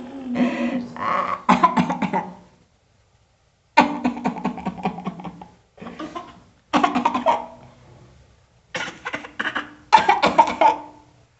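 Human coughing, done as an imitation: about six rough bouts of coughing with short pauses between them.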